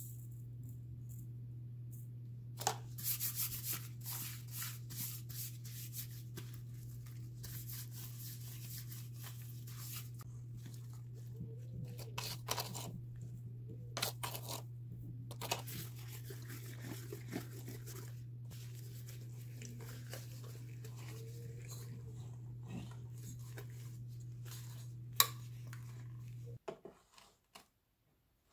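A plastic-gloved hand rubbing salt over a raw whole chicken in a steel bowl: irregular bursts of rustling and squishing of glove on wet skin. A steady low hum runs underneath and cuts off near the end, and there is one sharp knock shortly before it stops.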